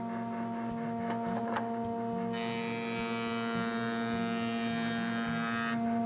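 Jointer running with a steady motor hum. About two seconds in, a cherry turning blank is pushed across the cutterhead, giving a loud cutting noise that lasts about three and a half seconds and stops suddenly as the pass ends.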